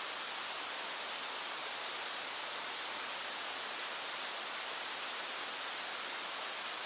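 Small stream flowing over stones: a steady, unbroken rushing hiss with no change in level.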